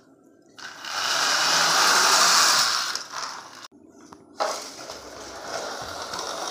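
Plastic toy vehicles pushed along a hard floor: a loud rolling noise of their wheels for a couple of seconds, which cuts off abruptly and then resumes more quietly about a second later.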